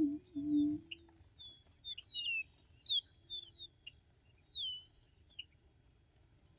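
Male Attwater's prairie-chicken booming: a low hollow hoot that ends about a second in, with fainter booms a little later. Over it, from about a second in, a songbird sings a run of high sliding whistled notes.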